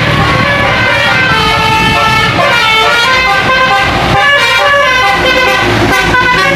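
Tour bus's basuri-style musical air horn playing a tune, its notes changing in steps every fraction of a second, over the bus's engine running.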